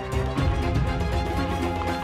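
Background music with held notes over a full bass.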